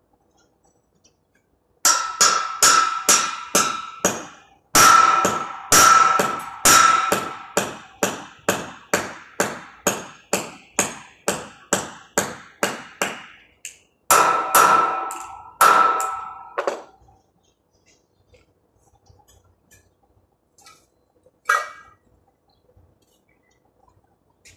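Hammer striking a steel square-tube frame: sharp, ringing metal blows about two a second, in three runs with short pauses between them, then one lone blow a few seconds later.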